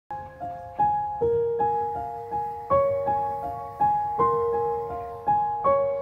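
Background music: gentle piano playing a slow, even melody of single notes, each struck and fading away.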